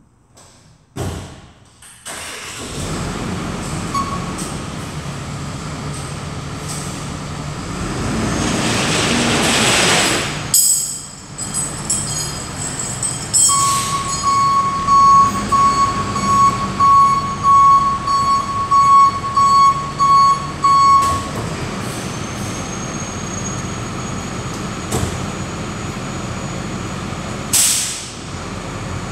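Flatbed tow truck's engine starting about two seconds in and running, with a rush of noise a few seconds later. Then its reverse alarm beeps steadily for about seven seconds as it backs up, and a short sharp hiss comes near the end.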